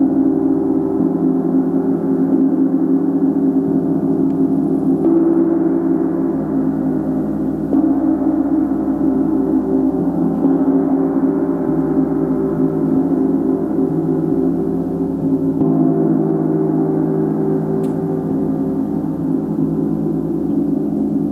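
Ambient drone of sustained, layered ringing tones, steady and loud, whose blend of pitches shifts several times.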